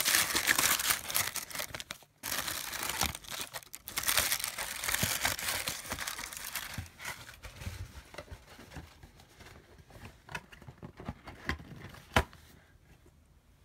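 Tissue paper and packaging crinkling and rustling as items are pulled out of a box. Busy and loud for the first several seconds, then dying down to scattered small handling noises, with one sharp click about twelve seconds in.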